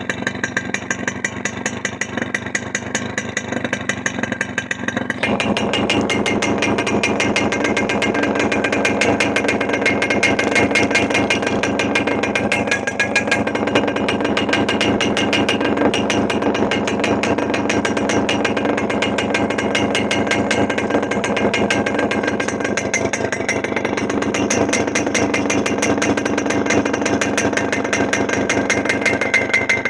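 Small motorcycle engine running through its muffler, a fast, even stream of exhaust pulses; about five seconds in it steps up to a louder, higher-pitched run and holds there.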